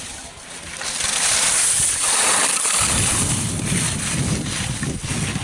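Skis scraping across hard-packed snow in a loud hiss, then from about three seconds in wind buffeting the microphone with an uneven low rumble.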